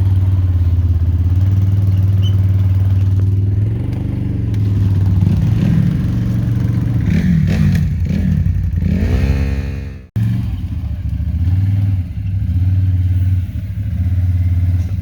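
A motor vehicle engine running steadily, revving up with rising pitch about seven seconds in, then cutting off abruptly before the steady running returns.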